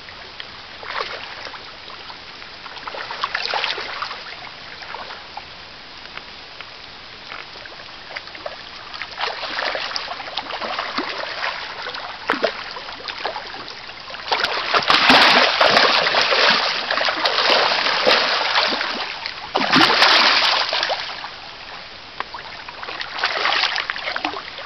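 Salmon splashing and thrashing in a shallow stream over the steady run of the water; the splashes come in irregular bursts, the loudest and longest for several seconds about two-thirds of the way through.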